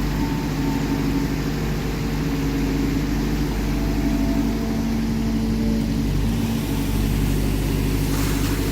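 Heavy machinery engine running steadily at a constant speed, with a hiss coming in near the end.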